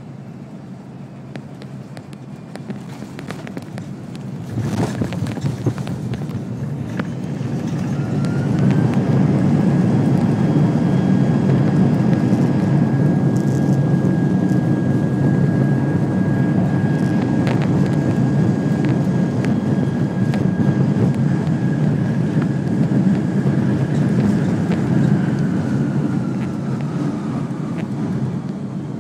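Airbus A330-200 touching down, heard from the cabin: a firm thump about five seconds in, then the jet engines spool up into reverse thrust. A rising whine settles into a steady tone over a loud rumble for about fifteen seconds, then falls away as the thrust is reduced near the end.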